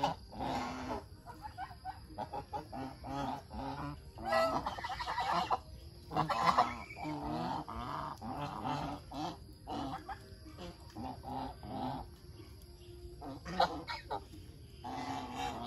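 A flock of domestic geese honking: many short, overlapping calls one after another, with a few louder honks standing out.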